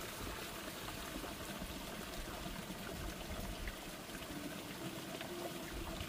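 Steady sound of running water.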